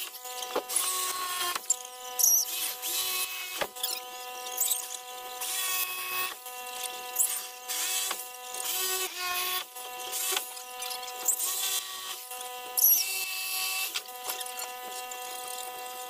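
Corded power saw cutting window openings in plywood wall sheathing. Its motor whines steadily throughout, broken by repeated short bursts of cutting noise as the blade works along the lines.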